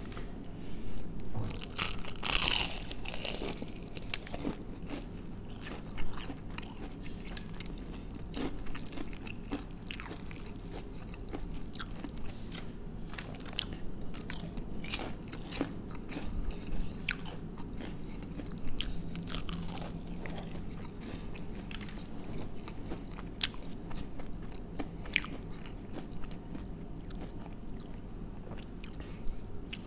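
Close-up eating of crispy breaded fried chicken: irregular crunchy bites and chewing.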